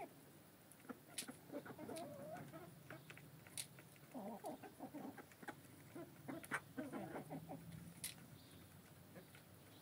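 Domestic hens clucking quietly in short wavering runs while feeding, with scattered sharp ticks of beaks pecking grain from a feeder tray.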